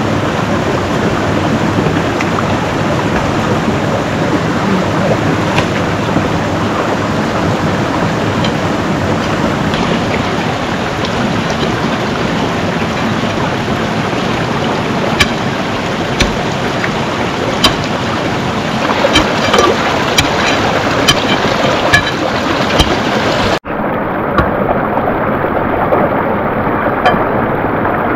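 A loud, steady rushing noise, with scattered sharp clicks through its middle stretch. It drops out for an instant about 23 seconds in.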